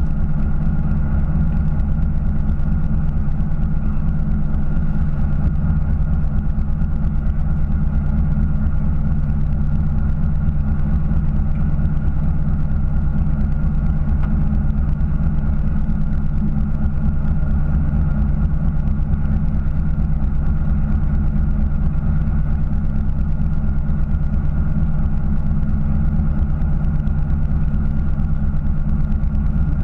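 Fishing boat's engine running steadily, a constant low hum with several steady tones and no change in speed.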